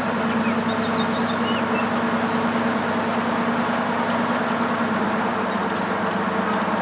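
1971 Ford pickup truck's engine running steadily while driving, with road and tyre noise, heard from inside the cab; the engine note drops slightly about five seconds in.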